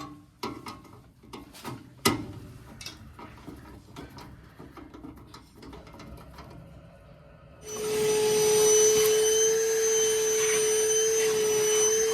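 Tools and metal parts clicking and knocking as a gas furnace is being taken apart, then about eight seconds in a vacuum cleaner switches on and runs steadily with a high, even whine, cleaning out the furnace.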